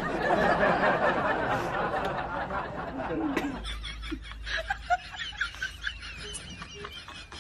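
Snickering and giggling laughter. A dense, muffled noise fills the first three and a half seconds, then the laughter goes on quieter as short, wavering high sounds.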